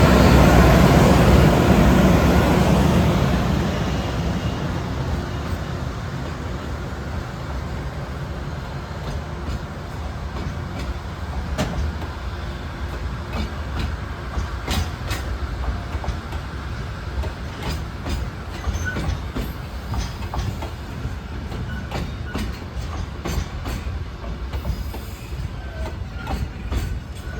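Freight train rolling past, loudest for the first few seconds, then a steady rumble of wagons with repeated clacks of wheels over rail joints that come thicker near the end.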